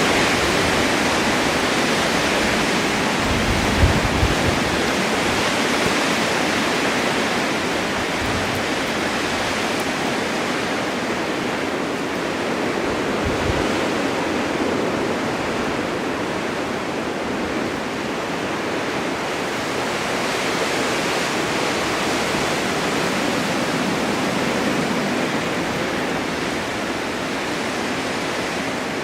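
Blizzard wind blowing snow: a steady, dense rushing hiss that swells and eases slightly, with a few low thumps from gusts a few seconds in and again about halfway through.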